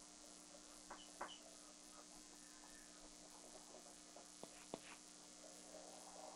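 Near silence: a steady faint electrical hum and hiss from the recording setup, with four faint short ticks in two pairs, about one second and four and a half seconds in.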